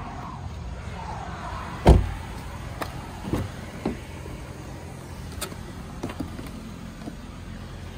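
A car door of a 2012 Hyundai Sonata Hybrid shutting with a heavy thump about two seconds in, followed by a few lighter clicks and knocks as the next door is handled and opened.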